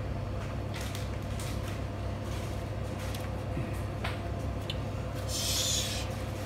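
Hands and a knife working wet turtle meat on a cutting board: soft squishes and a few light taps over a steady low hum, with a short hiss a little after five seconds in.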